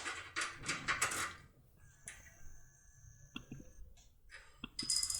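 Metal clicks and clatter of a lock cylinder and lockpick tool being handled and fitted, with a short hissing burst near the end.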